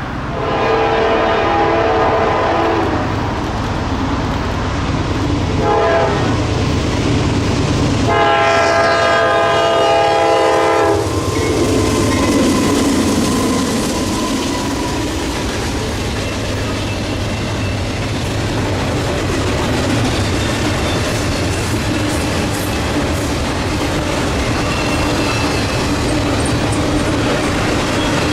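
Freight train locomotive horn sounding three times: a long blast, a short one, then a long one. The locomotive then passes with its engine running, and the wheels of the following cars clatter over the rail joints.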